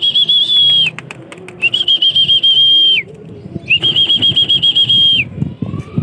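A person whistling to call pigeons into a trap cage: three long, high, warbling whistles of about a second and a half each, with short pauses between them.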